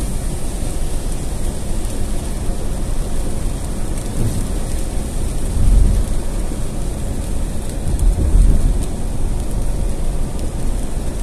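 Inside a moving car's cabin in heavy rain: a steady low rumble of tyres on the wet road mixed with rain noise. Two louder low rumbles swell up about six and eight seconds in.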